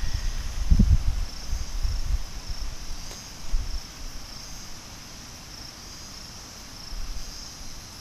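Insects chirping steadily in a high-pitched, pulsing chorus. Low rumbling on the microphone in the first two seconds.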